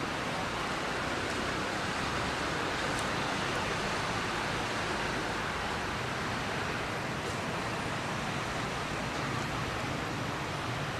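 A steady, even hiss of background noise with no calls or distinct events.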